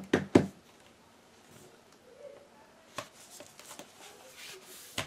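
A laptop being handled: its lid shut with two sharp knocks right at the start, then faint rustling of the foam sheet under it as it is turned over and laid down, with single knocks about three and five seconds in.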